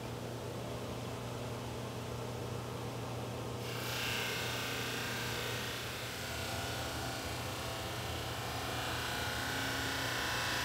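Drum sander running with a steady hum. About three and a half seconds in, a red oak panel on the conveyor reaches the sanding drum and the hiss of abrasive sanding wood starts abruptly and carries on.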